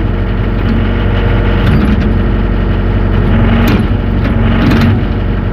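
Yanmar diesel engine of a JoyT5 JT5600 6.2-ton mini excavator running steadily while its hydraulics work the thumb attachment. A steadier tone joins the engine from about a second and a half in until near the end, with a few light clicks about two, four and five seconds in.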